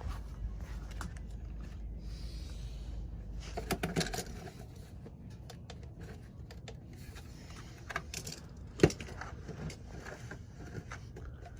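Scattered small clicks, knocks and scrapes of handling around a pickup's engine bay, with a cluster of knocks about four seconds in and one sharp click near nine seconds. A low rumble sits under the first four seconds.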